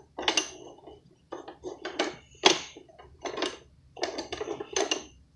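Wooden and plastic toy pieces on a child's wooden activity cube clacking and knocking as they are worked by hand, in a quick irregular series of strikes.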